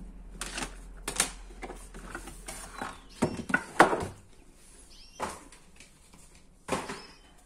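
Plastic food containers and lids clattering and knocking as they are taken off a kitchen cupboard shelf, a handful of separate knocks with the loudest about four seconds in.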